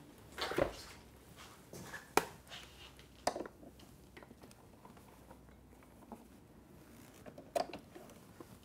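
A few short, sharp knocks and clatters as a motorcycle's rear subframe is lifted and tied up with a bungee cord: parts and the cord's hooks bumping against the bike.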